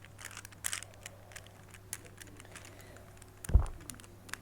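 Plastic twisty puzzle being turned by hand, its pieces clicking irregularly, with one dull thump about three and a half seconds in.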